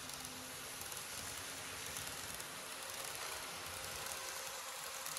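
KATO N-gauge JR Kyushu 813 series model train running on the track: a steady hiss of wheels and motor with a faint hum. It has an unpleasant running noise, which the owner traces to a wheel lifted off the rail.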